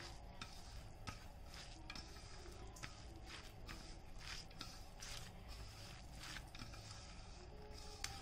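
A hand squishing and mixing finely chopped vegetables with cornflour and sauces in a steel bowl: faint, irregular squelches and scrapes of the mixture against the bowl.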